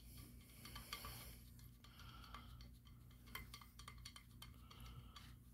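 Near silence, with a few faint, scattered clicks of a small metal nut and barrel bolt being worked by hand in a wooden strip, over a low steady hum.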